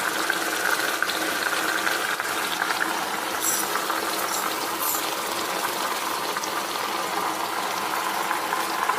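Grated carrots and milk simmering in a kadhai as the milk cooks down: a steady bubbling hiss, with two faint clicks midway.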